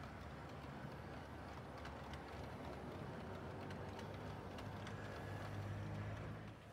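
Model railway train rolling along the track: a rake of Accurascale GBRF biomass hopper wagons hauled by a model Class 66, giving a steady low hum with light clicking of wheels over the rail joints. The hum grows a little louder near the end.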